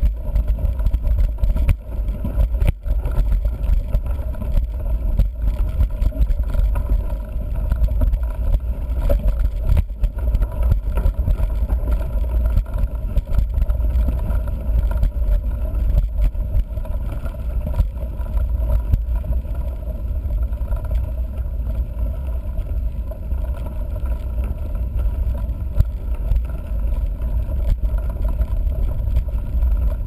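Steady rumble of a mountain bike's knobby 29-inch tyre rolling over a gravel dirt road, picked up through a camera mounted low on the front fork, with scattered knocks and rattles from stones hitting the bike and mount.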